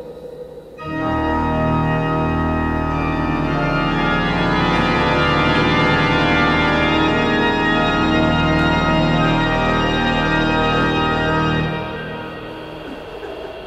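Organ music: a loud sustained chord that swells in about a second in and holds until near the end, where it drops back to a quieter passage.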